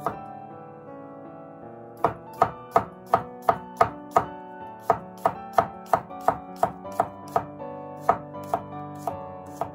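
Chef's knife slicing garlic cloves on a wooden cutting board, each stroke a sharp knock of the blade on the board. The strikes come steadily at about three a second, starting about two seconds in after a short pause.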